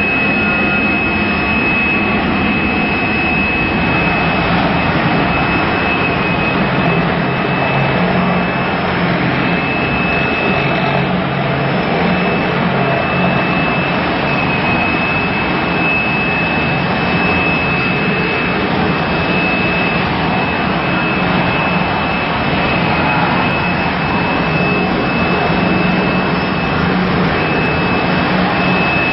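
Fast Prep 2020 concrete floor grinder with a Single Rhombus diamond grinding plate running at over 2,000 rpm, grinding off a heavy coating build. A loud, steady grinding noise with a constant high whine.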